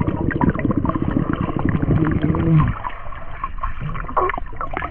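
Muffled underwater sound of a swimming pool heard through a submerged camera: swirling, bubbling water from a swimmer diving, with many small clicks. A heavier low rumble falls away about two and a half seconds in.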